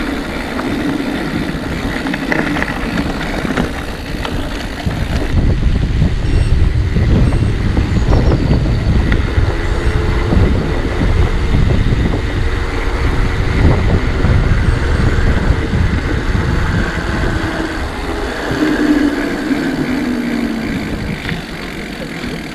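Wind rushing over the microphone with tyre rumble from a mountain bike in motion: a fluctuating noise strongest in the low end.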